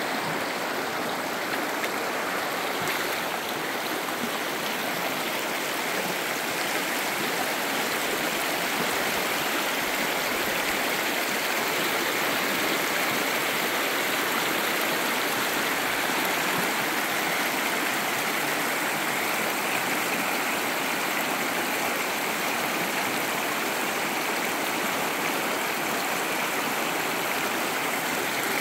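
Shallow, rocky river flowing fast over stones and riffles: a steady rush of water.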